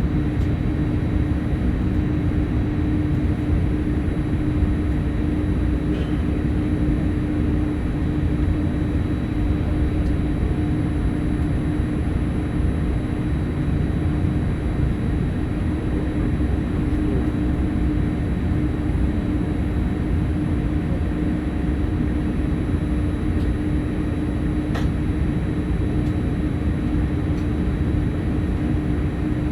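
Steady cabin hum of a Boeing 787-8 parked at the gate: the air-conditioning and ventilation running with a constant low drone and a steady tone, broken only by a couple of faint ticks.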